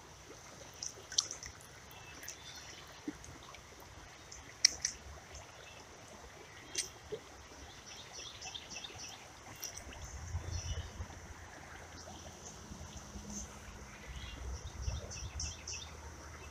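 Creek ambience: shallow water trickling over a faint steady hiss, with small birds chirping repeatedly. A few sharp clicks stand out, the loudest about a second in and about four and a half seconds in, and a low rumble comes in over the second half.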